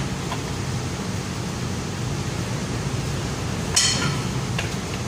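Steady low machinery hum, with one sharp metallic clink of a tool against the steel flange bolts about four seconds in and a few faint ticks of metal on metal.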